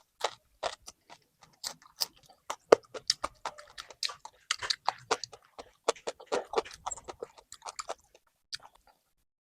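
Close-up chewing of a crusty bánh mì stuffed with filling: a quick run of sharp crunches and wet smacks, several a second, thinning out near the end.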